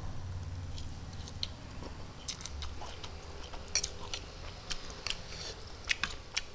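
Close-up chewing and mouth sounds of a man eating spicy instant noodles: a run of short wet clicks and smacks, irregular and growing busier toward the end.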